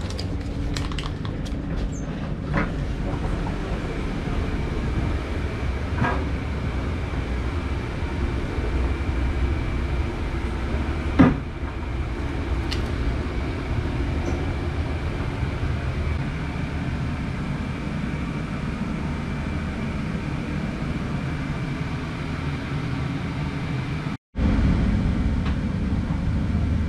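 Steady rumble and hum inside a passenger train carriage, with a faint steady high whine. A single sharp knock comes about 11 seconds in. Near the end the sound cuts out for an instant and comes back louder.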